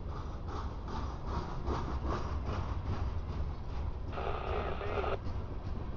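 Freight train rolling past: a steady low rumble with regular wheel clacks, about two or three a second. About four seconds in, a burst of scanner-radio static lasting about a second cuts in over it.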